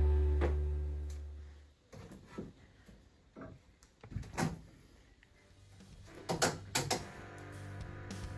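Guitar background music fades out over the first two seconds, leaving a few scattered light knocks and clicks. Quiet music fades back in over the second half.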